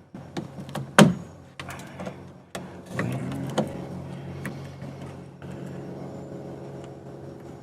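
Sharp clicks and knocks of hand tools working on speaker wires as they are stripped, the loudest about a second in, over a steady low hum.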